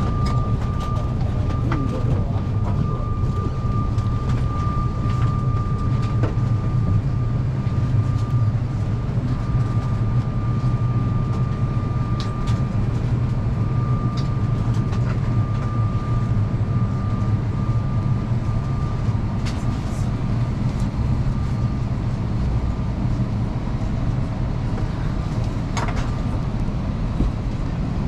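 Steady low drone inside a parked airliner's cabin, with a faint high whine that stops about three quarters of the way in and a few light clicks.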